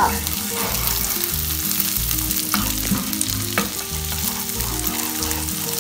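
Butter sizzling in a frying pan while chicken pieces are stirred through it with a spatula, with a couple of sharp spatula scrapes about two and a half and three and a half seconds in. Background music with low stepping notes runs underneath.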